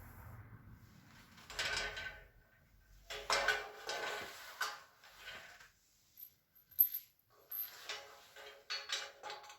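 Metal shelving parts and screws being handled during assembly: several short bursts of clinking and scraping, with a sharp click about two-thirds of the way in.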